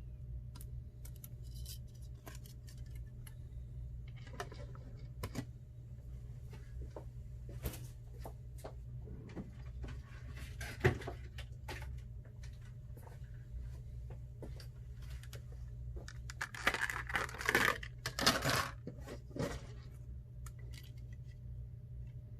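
Light, scattered clicks and taps of small tools and iPhone parts being handled on a work surface, with a sharp click about halfway through and a stretch of scraping and rustling near the end, over a low steady hum.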